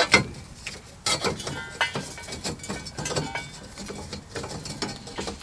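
Metal exhaust outlet tube being slid by hand onto the end of a 3-inch steel side pipe: a series of scrapes and light knocks as the two tubes rub and bump, a couple of them with a brief metallic ring.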